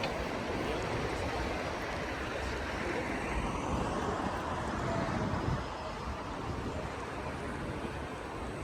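City street traffic noise, with a vehicle passing by that swells and then drops away about halfway through.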